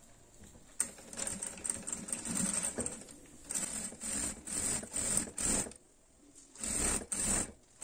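Domestic sewing machine stitching the closing seam of a French seam, in short runs: it starts about a second in, stops briefly around six seconds, then runs once more near the end.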